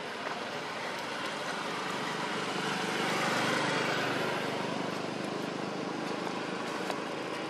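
A road vehicle passing, a rushing noise that swells to its loudest about halfway through and then fades.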